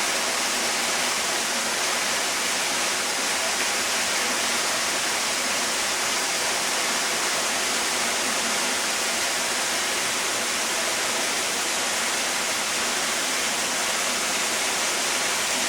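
Waterfall rushing: a steady, even hiss of falling water that never changes.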